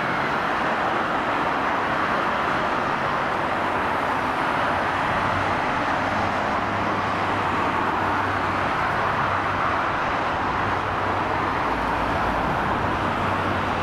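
Jet engines of a Boeing 767-300ER airliner landing and rolling out on the runway: a steady, even rush of noise, with a low hum coming in about halfway through.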